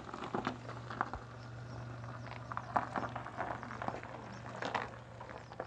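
Footsteps crunching on loose gravel, irregular and uneven, over a steady low hum.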